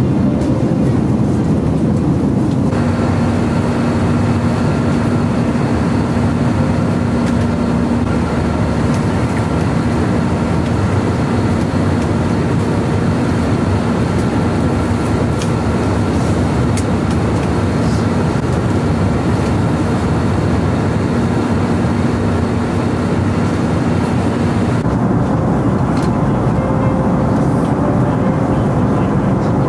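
Steady rushing noise inside the cabin of an Airbus A320-200 airliner, from its engines and the airflow, with faint steady hums under it. The sound changes slightly about three seconds in and again near the end.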